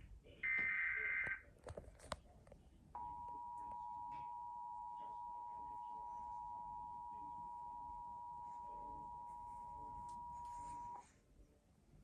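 An Emergency Alert System SAME header data burst, a short buzzy warble lasting about a second. About two seconds later the EAS two-tone attention signal starts: two steady tones sounding together for about eight seconds, then cutting off sharply.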